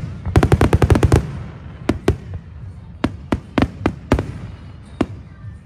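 Fireworks display going off: a rapid volley of about ten sharp bangs in the first second, then single bangs every half second or so, thinning out toward the end.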